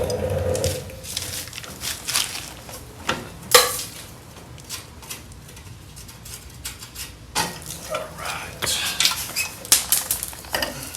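Clinks, knocks and scrapes of metal engine parts and hand tools being handled, with a sharp knock about three and a half seconds in and a busier stretch of clatter near the end.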